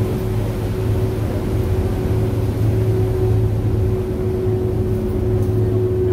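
Staten Island Ferry's engines and on-board machinery running steadily: a deep, even drone with a steady higher tone above it.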